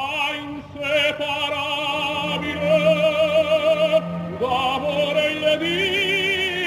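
Operatic singing in long, held notes with wide vibrato, over music.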